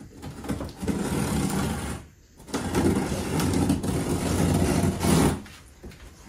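A large cardboard box being torn open: packing tape and cardboard ripped in two long tearing stretches, the second one longer.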